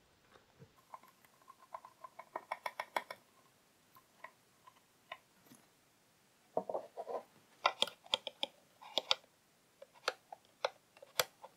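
Faint handling clicks and knocks of wooden and metal sander parts being fitted together: a quick run of light clicks, then a cluster of knocks and taps as parts are set in place, and one sharp click near the end.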